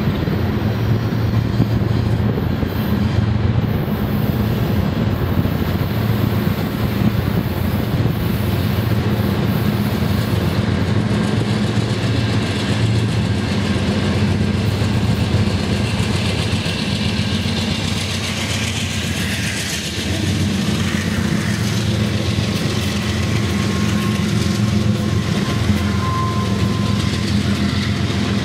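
A BNSF intermodal freight train passes close by, led by three diesel locomotives whose engines run with a steady low drone. In the second half the noise of the container cars' wheels on the rails grows stronger as the cars roll past.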